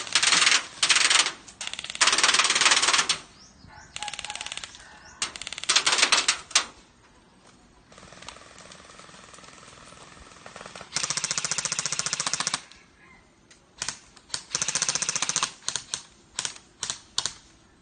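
Airsoft guns firing on full auto in repeated rapid bursts of about a second each. A fainter, more distant stretch of firing comes in the middle, and a few short bursts come near the end.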